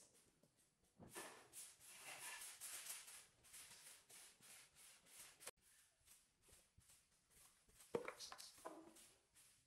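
Soft swishing strokes of a grass broom sweeping a tiled floor, one stroke after another, with a light knock about eight seconds in.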